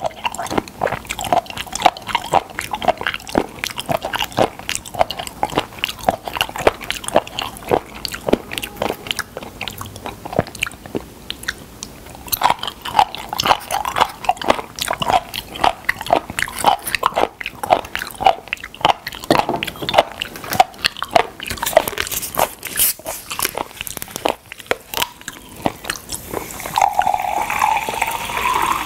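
Close-miked chewing and biting of raw spoon worm (gaebul): wet, crunchy smacks and squelches in an irregular run. Near the end a drink is poured from a plastic bottle into a glass mug, its pitch rising as the mug fills.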